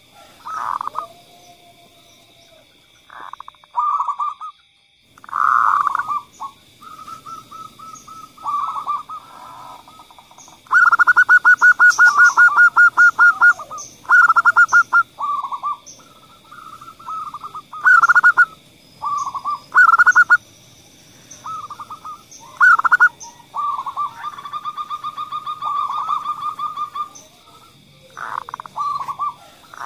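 Zebra dove (perkutut) cooing: a series of short rolling coos and rapid trilled phrases, repeated with short gaps between them. A faint steady high-pitched whine runs underneath.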